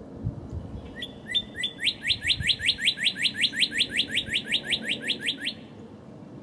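Northern cardinal singing: a few spaced rising notes, then a fast, even series of about twenty rising notes, about five a second, stopping about a second before the end.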